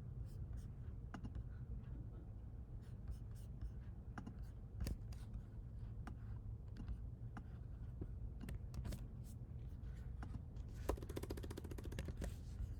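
Scattered clicks from a computer keyboard and mouse, with a quick run of evenly spaced clicks about two seconds before the end, over a steady low hum.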